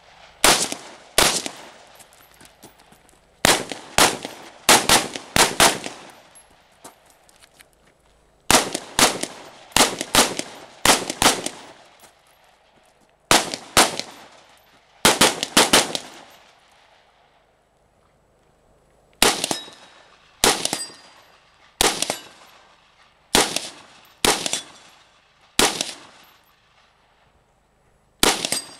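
AR-15-style semi-automatic rifle firing in quick pairs and short strings of shots, each shot followed by a short ringing echo, with pauses of a few seconds between groups.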